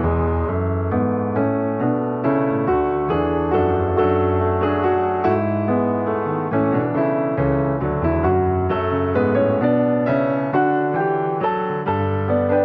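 Background music: a soft piano melody with repeated struck notes at a steady pace.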